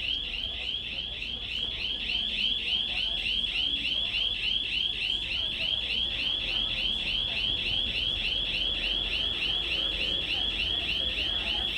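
Panic alarm sounding continuously: a high electronic warble repeating several times a second, steady in level.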